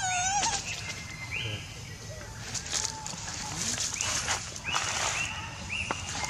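A macaque gives a loud, wavering squeal right at the start. Dry leaf litter then crackles and rustles as the monkeys scramble through it, while short high chirps repeat several times.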